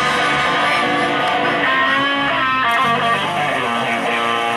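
A live band playing, led by an electric guitar whose notes bend in pitch around the middle.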